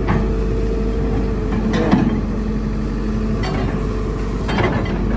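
Long-arm excavator's diesel engine running steadily with an even hum, with a few brief knocks in between.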